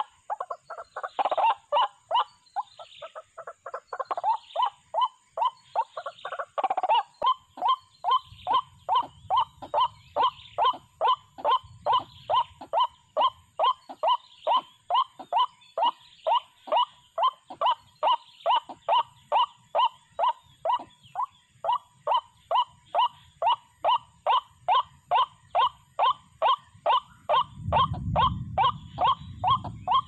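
White-breasted waterhen calling: a string of harsh, falling 'kwak' notes, jumbled at first, then settling into a steady beat of about two a second. A low rumbling noise comes in near the end.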